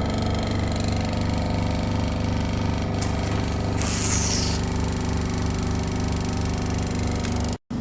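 Hydrodermabrasion facial machine's suction pump running with a steady, rapidly pulsing hum during treatment, with a burst of hiss about three seconds in. The sound cuts out abruptly for a moment near the end.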